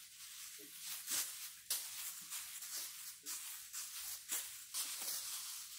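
Plastic bags rustling and swishing in short, irregular bursts as they are tossed and caught in a three-bag juggle.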